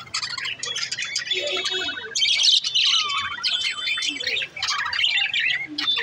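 Budgerigar warbling and chattering: a dense, continuous run of quick chirps, squeaks and short warbled notes, with a brief lull a little past the middle.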